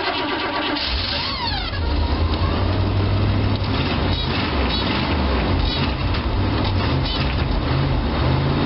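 Oldsmobile 403 V8 in a 1957 GMC bus catching about a second in after a short crank, then running through its unfinished dual exhaust. Its pitch rises and falls as the throttle is worked. A brief whine rises and falls as it catches, which the owner puts down to a transmission fluid leak.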